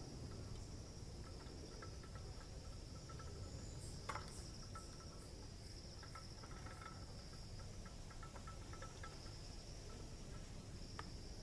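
Faint, steady, high-pitched insect trill, typical of crickets, with a single light click about four seconds in.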